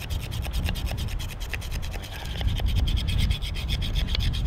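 Knife blade scraping along a peeled wooden stick in rapid, repeated strokes, smoothing the carved surface.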